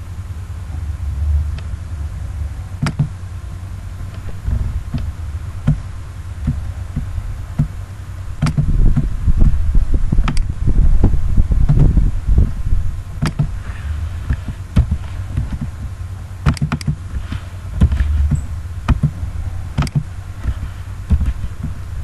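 Computer mouse clicks and keystrokes, short sharp clicks scattered through, with more of them in the second half while values are typed into the fields. A low, uneven rumble runs underneath.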